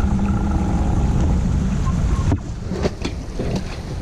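Wind buffeting the microphone on a sailboat under way, over a steady motor hum that cuts off abruptly a little over two seconds in. After the cut, quieter wind and water noise with a few short knocks.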